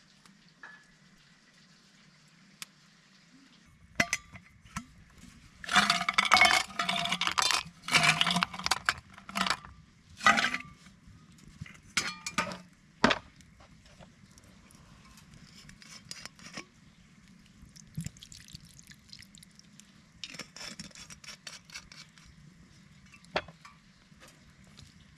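Metal camp cookware and utensils clinking and scraping. A run of loud, rapid clatter comes a few seconds in, then scattered light clinks and knocks.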